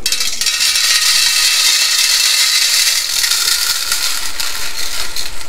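Dry-roasted whole spice seeds (coriander, cumin, fenugreek, fennel, ajwain and nigella) poured from a kadhai onto a stainless-steel plate: a steady, hissing patter of small seeds striking and sliding over the metal.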